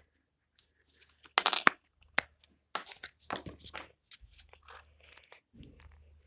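A push-pop fidget toy being pressed and popped: irregular sharp pops mixed with short crinkly plastic crackles, with the loudest pops coming about a second and a half in.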